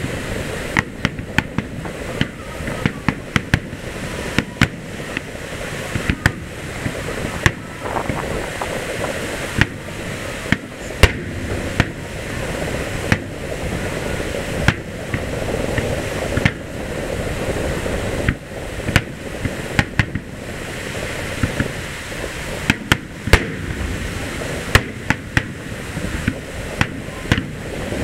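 Fireworks display: aerial shells bursting in a rapid, irregular series of sharp bangs, some close together and some a second or more apart, over a steady background rumble.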